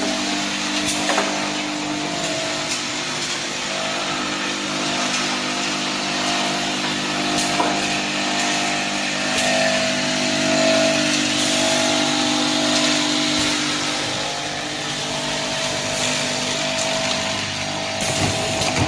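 Automatic bottle filling and capping line running: a steady machine hum with a few sharp clicks.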